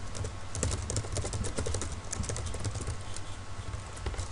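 Computer keyboard being typed on: rapid, irregular key clicks.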